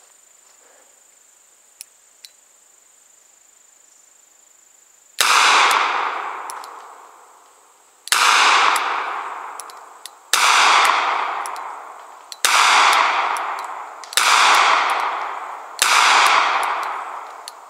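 Six shots from a 2.75-inch-barrelled Smith & Wesson Governor revolver firing 230-grain .45 ACP double action, spaced about two seconds apart, beginning about five seconds in. Each shot is followed by a long fading echo.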